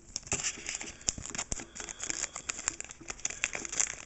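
Foil wrapper of a Pokémon booster pack crinkling and crackling in the fingers as it is worked open slowly at its sealed edge, in many small irregular crackles.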